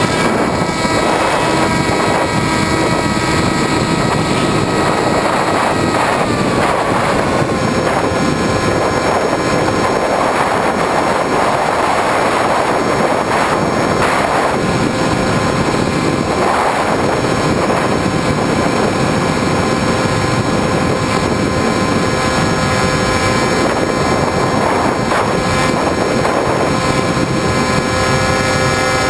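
Electric motor and propeller of a Skywalker FPV plane, heard from its onboard GoPro as a steady whine over rushing air. About six seconds in the pitch steps down as the throttle is eased back, then holds steady.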